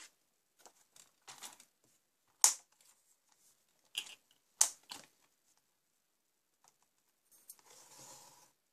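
Paper being handled and set on a sliding paper trimmer, with a few sharp clicks and taps, then the trimmer's cutting head sliding down its track and slicing through patterned paper, a short rasping cut near the end.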